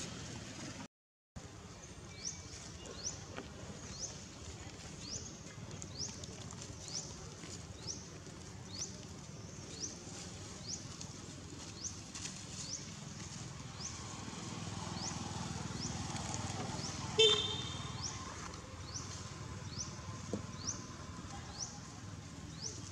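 Outdoor ambience with a short, high, rising chirp repeating steadily about every two-thirds of a second over a low background hum. A single louder, short squeak stands out about three-quarters of the way through.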